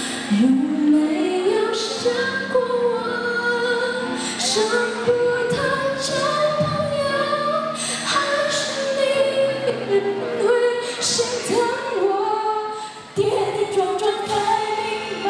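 A young woman singing a Mandarin pop song solo through a handheld microphone, holding long notes that rise and fall, with a brief breath pause about thirteen seconds in.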